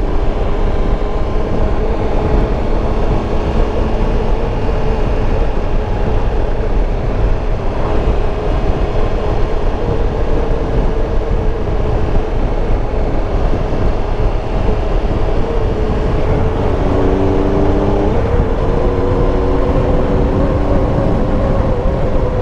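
Triumph Tiger Explorer 1200's three-cylinder engine running at road speed, with road and wind noise. Its note changes about three-quarters of the way through and then climbs a little.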